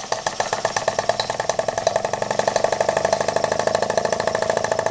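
Scratch-built double-acting uniflow-type model steam engine running on live steam, its exhaust chuffing in a rapid even beat that quickens over the first couple of seconds and then holds steady.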